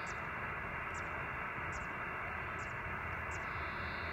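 Steady receiver hiss from the ICOM IC-705 transceiver's speaker, cut off sharply at the top, with faint high ticks about once a second and a faint high tone near the end.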